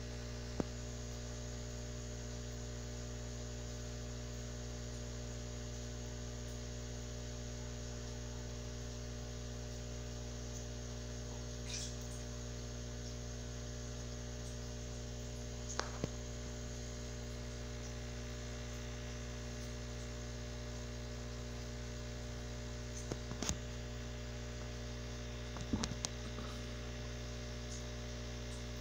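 Steady electrical hum made of several even, unchanging tones, with a handful of short faint clicks scattered through it.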